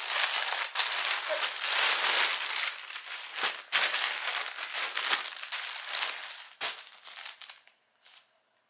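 Packaging crinkling and rustling as a parcel is unwrapped and handled by hand, dying away near the end.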